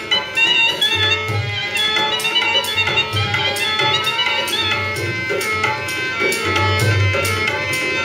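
Rajasthani folk music: a pitched melody over a steady hand-drum beat with deep thumps about once a second.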